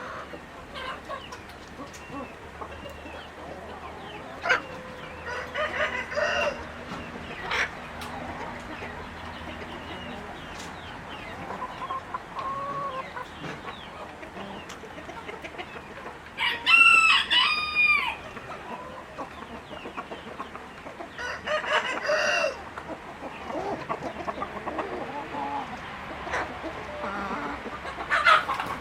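Chickens clucking, with a rooster crowing several times; the loudest crow comes about halfway through.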